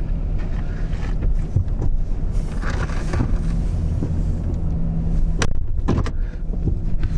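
Vehicle engine and road noise while driving, a steady low drone, with a sharp click about five seconds in.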